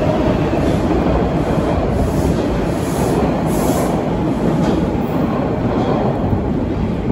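TTC subway train pulling out of the station and running off into the tunnel: a steady rumble of wheels and motors on the rails.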